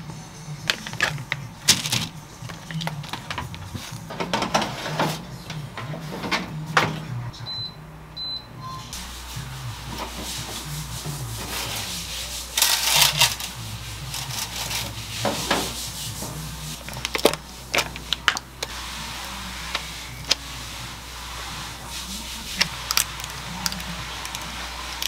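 Kitchen handling sounds: a plastic food bag crinkling, two short electronic beeps, then clatter as the wire rack of a countertop air fryer oven is pulled out, with scattered clicks of utensils and dishes. A metal ice-cream scoop works on a plate near the end.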